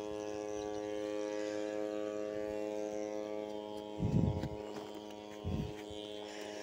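Steady motor hum at a constant pitch, with two brief low rumbles about four and five and a half seconds in.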